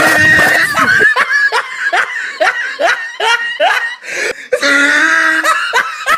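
High-pitched laughter: a quick run of short rising "ha" notes, about three a second, then a longer drawn-out laugh near the end.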